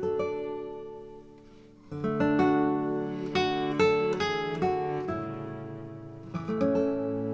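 Background music on acoustic guitar. A strummed chord rings and fades, then about two seconds in fresh strums and plucked notes pick up.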